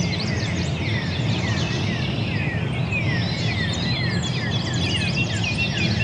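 A chorus of many songbirds singing and calling at once, with lots of quick overlapping chirps and down-slurred whistles, over a steady low rumble.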